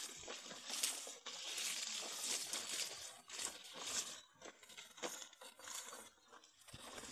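Irregular rustling and crunching of maize leaves brushed aside as someone walks through a crop of young maize.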